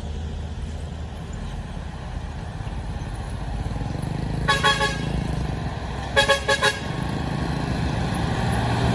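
Low steady rumble of a loaded Isuzu truck's diesel engine, growing louder near the end. A vehicle horn toots twice about four and a half seconds in, then again in a quick run of three or four short toots just past six seconds.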